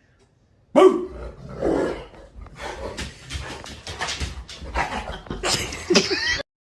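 A pet dog barking and growling, starting suddenly about a second in and cutting off abruptly near the end.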